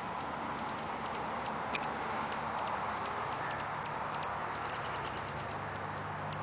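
Hummingbird giving sharp, irregular chip clicks, several a second, with a brief rapid high chatter about three-quarters of the way through.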